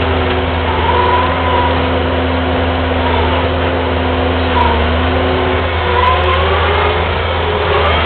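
Kubota skid steer's diesel engine running steadily under load, a deep hum with a higher whine that wavers up and down in pitch.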